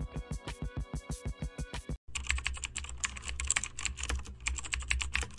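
Background music with a steady beat stops abruptly about two seconds in. It is followed by rapid computer-keyboard typing clatter over a low hum, a typing sound effect for on-screen text being typed out.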